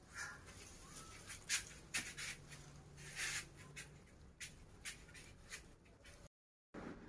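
Faint rustling and scratching of a baby monkey moving and pawing on a fleecy towel, a run of irregular short scrapes and clicks, with one brief faint squeak about a second in.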